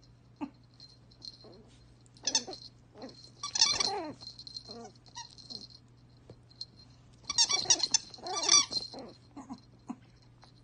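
Yorkshire terrier puppy chewing a rubber squeaky toy, setting off high squeaks in bursts: a short one about two seconds in, a longer run around four seconds, and another long run from about seven to nine seconds in.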